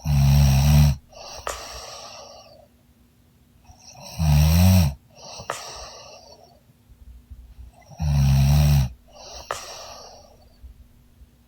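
A young woman snoring heavily in deep sleep: three loud, buzzing snores about four seconds apart, each followed by a softer, breathy sound.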